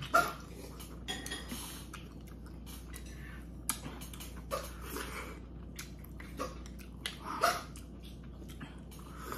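Close eating sounds: sipping kimchi dumpling rice cake soup from a spoon and chewing, with a sharp click of the spoon near the middle.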